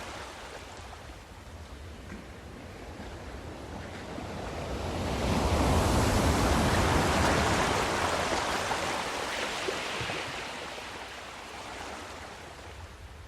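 Ocean waves on a shore: one wave builds, breaks and washes in loudest in the middle, then recedes with a fading hiss.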